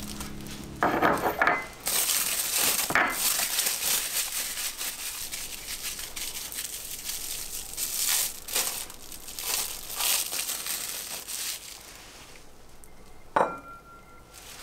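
Plastic cling wrap crinkling as hands twist and squeeze a rice ball inside it, shaping a round onigiri. Near the end, a single sharp clink of ceramic as the ball is set on the plate.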